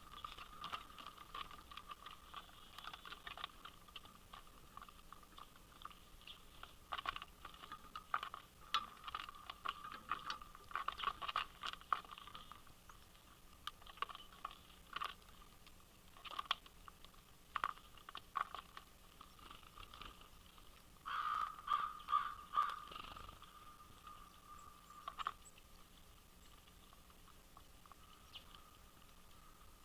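Crow pecking and picking at bird seed on a feeder, an irregular scatter of taps, scrapes and crunches, with a louder flurry about 21 seconds in.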